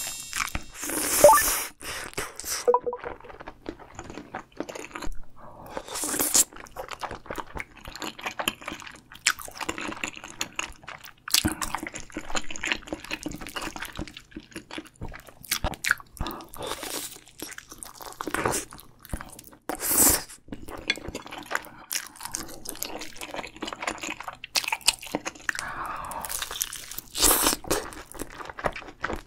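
Close-miked mukbang eating sounds of spicy noodles, fish cake and fried food: wet chewing, slurps and crunchy bites, coming irregularly with short pauses.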